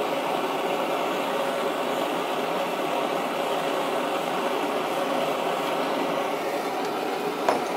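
Handheld gas blowtorch flame hissing steadily as it heats the boss of a small steel flywheel, softening the Loctite 638 that fixes it to its shaft so that it can be released. A single sharp click comes near the end.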